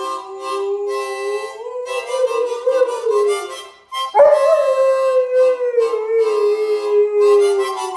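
A harmonica playing while a dog howls along with it. A fresh howl breaks in suddenly about four seconds in and slowly slides down in pitch.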